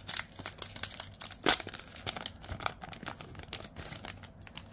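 Wrapper of a Select AFL Footy Stars 2024 card pack crinkling as the cards are pulled out of it: a run of small crackles, with one sharper crackle about one and a half seconds in.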